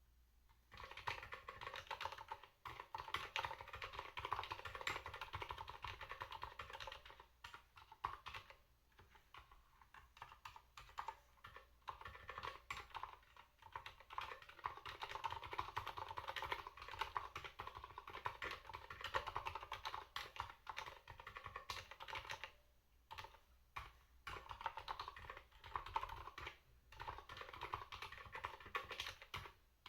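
Continuous typing on an ErgoDox EZ split mechanical keyboard with Silent Red (dampened linear) switches: a fast, dense stream of soft key strokes that starts about a second in, broken by a few brief pauses.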